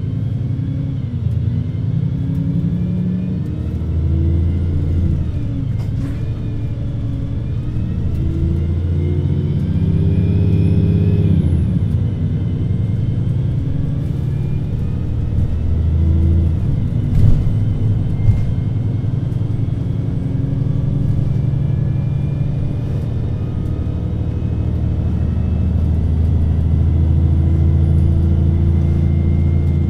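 Diesel engine and Voith automatic gearbox of a VDL Citea LLE 120 city bus, heard on board while driving: the engine note climbs and drops back several times as the bus pulls away and shifts up, with a faint high whine rising and falling around ten to twelve seconds in. A couple of sharp knocks come about seventeen and eighteen seconds in.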